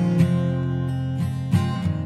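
Background music: acoustic guitar playing, with new notes struck near the start and again about one and a half seconds in.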